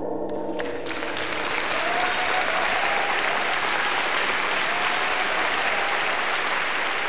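Theatre audience applauding, the clapping taking over about a second in as the music ends.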